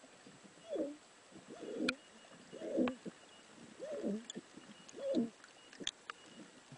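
Another freediver equalizing his ears underwater: a run of short, pitched noises that bend up and down, about one a second, with a few faint clicks among them.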